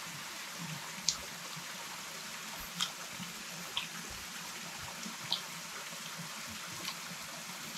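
Steady rush of flowing water, like a stream, with a few short sharp clicks scattered through it.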